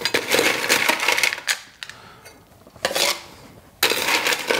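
Ice being scooped from an aluminium ice box, the cubes clattering against the metal and each other in three bursts.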